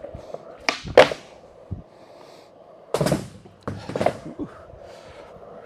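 Skateboard wheels rolling on a smooth concrete floor, with sharp clacks of the board being popped and landing during pop shove-it attempts: the loudest clack about a second in, and another run of clacks around three and four seconds in.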